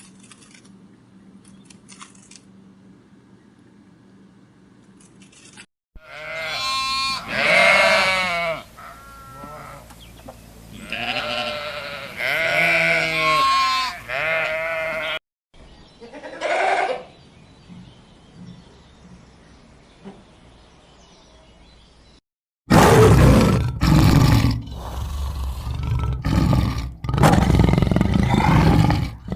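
Bleating farm animal: two long, quavering bleats and then a short one. About two-thirds of the way in, loud, rough, noisy calls take over in several bursts.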